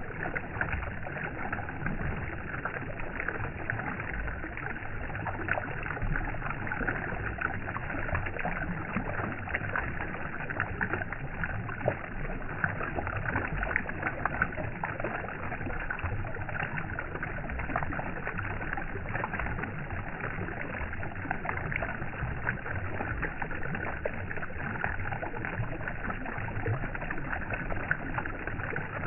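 Steady flowing water with many small splashes and ticks running through it.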